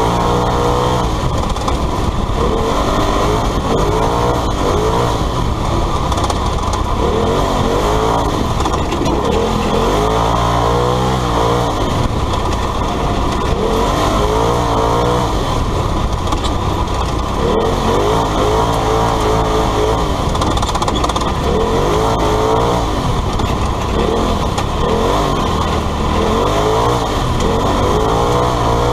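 Polaris RZR side-by-side's engine heard from inside the cab, revving up and falling back every second or two as it is driven hard along a dirt rally stage, over steady road and tyre noise.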